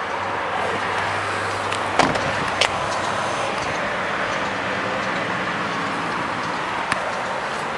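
A car door shutting with a sharp knock about two seconds in, then a lighter click, over steady outdoor background noise.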